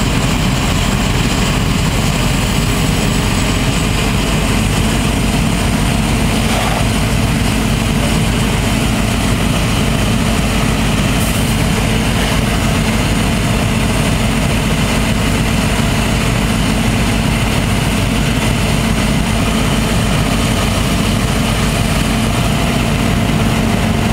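Fire engine's engine running steadily to drive its water pump and feed the hoses: a constant, even drone with a steady hum.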